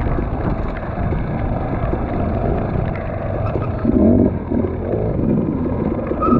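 Off-road dirt bike engine running under a steady rough rumble of wind and trail noise. It revs up briefly about four seconds in and again about a second later.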